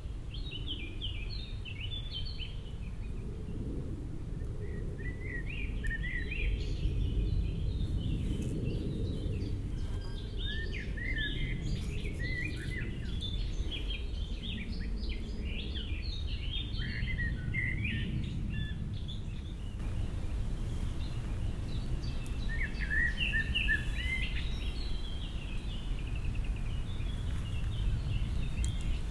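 Wild songbirds chirping and singing in quick, varied phrases, busiest in the middle with a short lull about two-thirds of the way through, over a steady low rumble.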